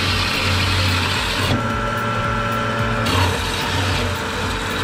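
Horizontal metal-cutting bandsaw running, its blade cutting steel with a steady hum and hiss. About a second and a half in, the hiss drops away for about a second and a half, leaving a steady whine, then returns.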